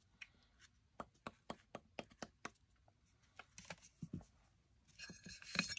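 Faint, light clicks and taps, a few a second, from small parts being handled on a silicone work mat, followed near the end by a soft rustle.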